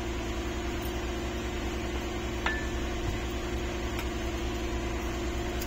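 A steady low hum, with one light ringing clink of a steel spoon against a steel mixing bowl about two and a half seconds in.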